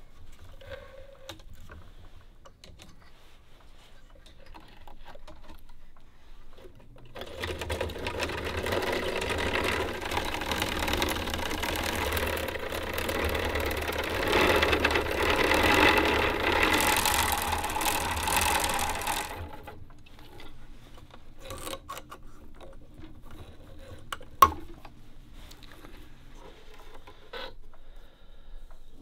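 Thread-wrapping machine running steadily for about twelve seconds, starting about seven seconds in and stopping about two-thirds of the way through, as it winds thread around a bamboo fishing rod section. Before and after, only light handling clicks, with one sharp click near the end.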